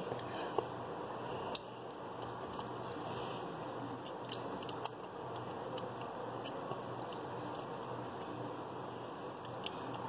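A person quietly chewing a spoonful of soft bean, rice and cheese burrito filling, with a few faint mouth clicks over a steady low hum.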